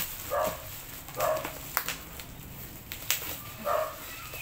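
A dog barking three short times, over the rustle and sharp crinkles of plastic bubble wrap being pulled off a parcel.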